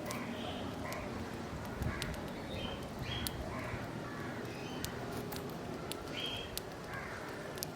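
Crows cawing among other birds calling, a run of short harsh calls every half second or so over steady outdoor background noise, with a few sharp ticks.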